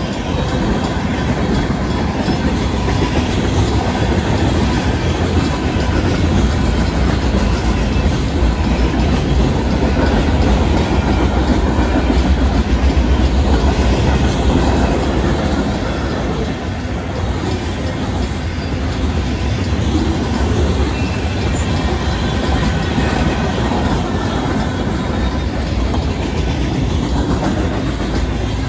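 Freight cars of a fast Union Pacific mixed freight rolling past close by: a steady heavy rumble of steel wheels with clickety-clack over the rail joints. The crossing's electronic and mechanical warning bells ring throughout the activation.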